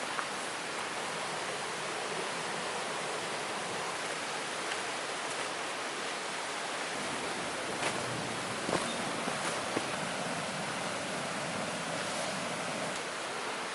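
Heavy rain falling steadily in a downpour, with a few louder single taps about eight to ten seconds in.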